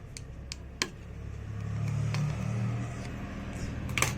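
Low engine-like hum of a motor vehicle that swells about halfway through and eases off, with a few sharp clicks early on and a louder click near the end.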